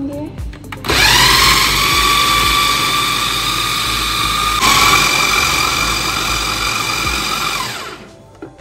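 Electric food chopper motor spinning up and running with a steady high whine as it minces raw chicken with browned onion. Its pitch steps up a little about halfway through, and it winds down near the end.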